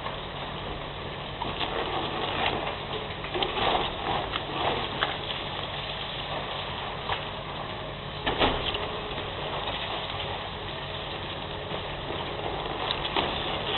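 Heavy demolition machinery, most likely an excavator, with its diesel engine running steadily while debris cracks and crunches at irregular moments. The loudest crack comes about eight seconds in.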